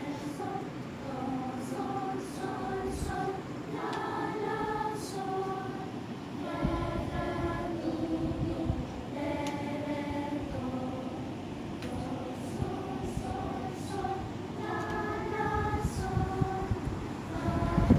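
Children's choir singing solfège a cappella, the notes short and separate and moving in steps.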